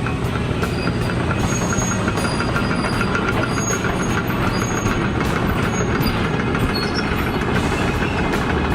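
Link-Belt 210 excavator at work: its diesel engine running steadily under load, with faint metallic clicks and brief high squeaks from the machine and scrap metal.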